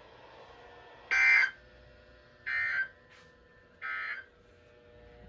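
NOAA Weather Radio sending its SAME end-of-message code: three short buzzing data bursts, about a second and a quarter apart, which mark the end of the winter storm warning broadcast.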